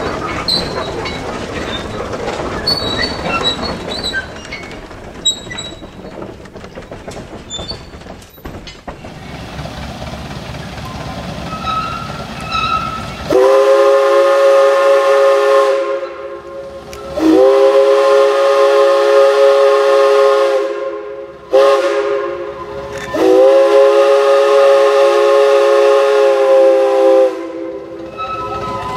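Steam whistle of a replica Climax logging locomotive sounding two long blasts, one short and one long, the standard signal for a road crossing; each blast is a chord of several notes. Before the whistle, the steady rumble and clicking of train wheels rolling over rail joints, heard from aboard the train.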